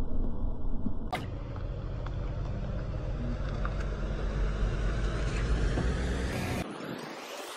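A car rolling slowly on wet asphalt, its engine and tyres giving a steady low rumble, with one sharp click about a second in. The rumble cuts off abruptly near the end.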